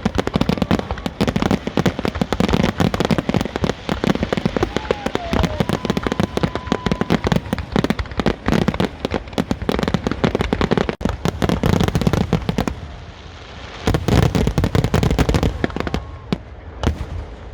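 Aerial fireworks going off in a dense barrage of bangs and crackles, easing off about twelve seconds in, then one more short volley and a few last pops near the end.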